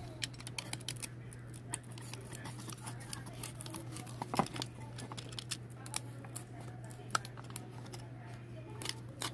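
Snap-off utility knife blade cutting and scraping an EVA foam fishing float: a run of small clicks and scratchy cuts, with sharper ones about four and a half seconds and seven seconds in, over a steady low hum.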